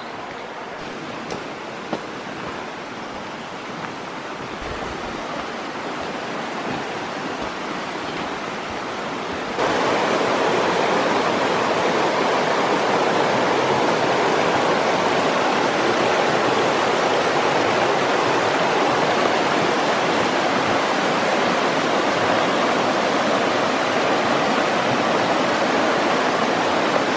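Shallow creek rushing over rocks in small rapids: a steady hiss of running water that grows slowly louder, then steps up suddenly about ten seconds in and holds steady.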